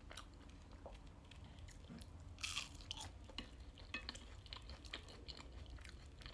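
Faint close-up chewing of crunchy oven-cooked food, with small crackles throughout and one louder crunch about two and a half seconds in.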